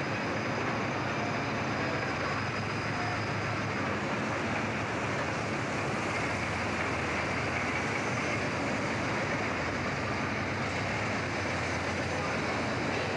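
Steady, unbroken din of locomotive repair shop machinery, with a low hum underneath.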